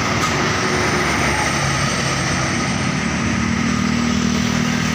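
Steady roadside traffic noise: engines of passing vehicles, with a low engine drone coming in about halfway through.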